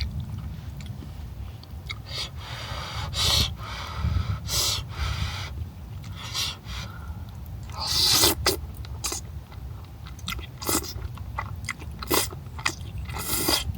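A person eating jjajangmyeon close to the microphone: irregular chewing and eating noises with short wet bursts and clicks, over a steady low background hum.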